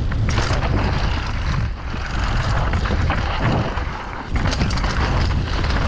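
Downhill mountain bike rolling fast down a dirt and loose-rock trail: wind rushing over the microphone with the knobby tyres crunching on the ground and short clatters as the bike goes over bumps.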